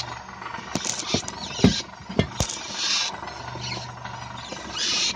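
Lada XRAY suspension squeaking: repeated high-pitched squeaks a second or two apart. Two dull knocks come in the middle.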